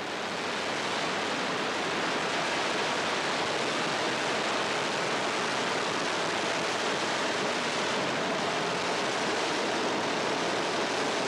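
Ariane 5 rocket at liftoff: the roar of its two solid rocket boosters and cryogenic main engine, an even rushing noise that swells over the first second and then holds steady.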